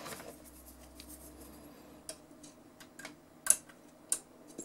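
Light, scattered clicks and taps of a thin hand tool against the plastic parts of a cassette deck mechanism while a rubber drive belt is fitted, the loudest tap about three and a half seconds in. A faint steady hum lies underneath.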